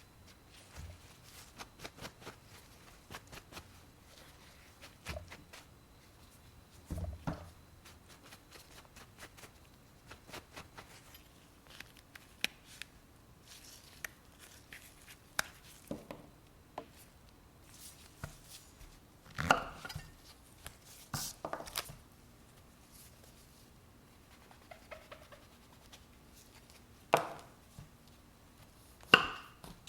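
Knife cutting mushrooms on a cutting board: irregular light taps and clicks, with a few sharper, louder knocks near the end.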